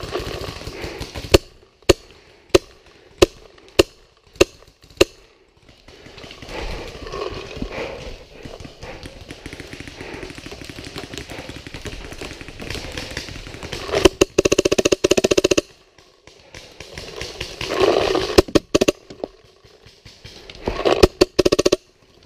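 Tippmann Phenom paintball marker firing seven loud, evenly spaced shots a little over half a second apart. Later come short stretches of rapid, rattling pops, once in the middle and twice near the end.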